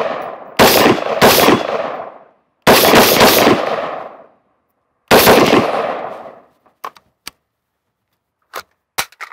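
Daniel Defense MK18 pistol with a 10.3-inch barrel firing steel-cased Tula .223 55-grain ammunition: about six sharp shots over the first five seconds, three of them in quick succession near the three-second mark, each ringing out in a long, fading echo. A few faint light clicks follow afterwards.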